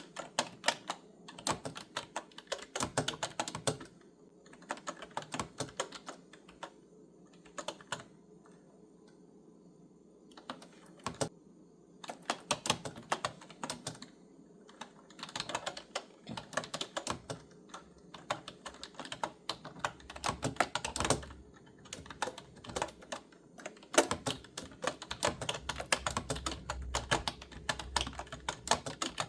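Clicky computer-keyboard typing, in runs of quick keystrokes broken by short pauses.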